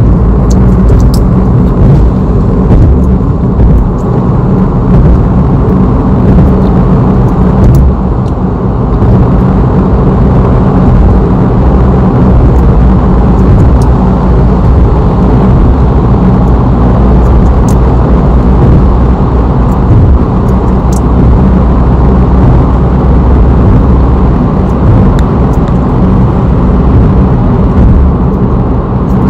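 Steady, loud, low-pitched rumbling background noise with a few faint clicks scattered through it.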